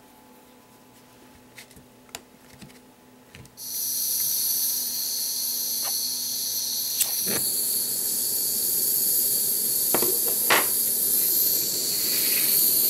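Handheld butane micro torch: after a few faint handling clicks, the gas hiss starts suddenly about three and a half seconds in and runs on steadily, with a sharp click a few seconds later.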